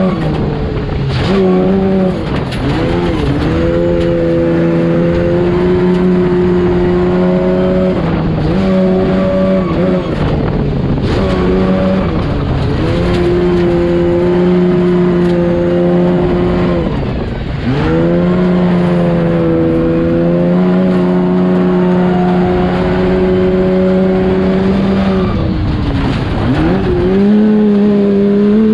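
Baja trophy truck's engine heard from inside the cab, running hard at high revs. The revs drop sharply and climb back again several times, over a rough rumble of the truck on the dirt track.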